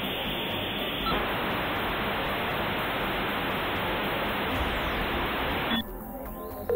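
Hiss of electronic static, an edited-in sound effect laid over the targeting-display graphics. It grows slightly louder about a second in and cuts off suddenly near the end.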